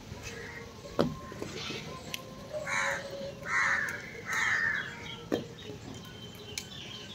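A crow cawing three times in quick succession, about three to four and a half seconds in. A sharp knock sounds about a second in, and another just after five seconds.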